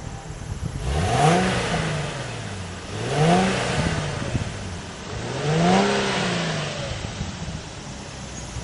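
Infiniti FX37's 3.7-litre V6 revved three times while stationary, heard at the exhaust. Each rev climbs quickly in pitch, then falls back to idle.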